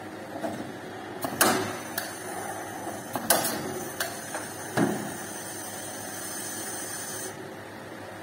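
Sharp knocks and clicks of parts being handled inside a sheet-metal railway air-conditioning unit housing, about half a dozen over a few seconds, the loudest about a second and a half in and again past three seconds. A steady high hiss sets in about a second in and cuts off near the end.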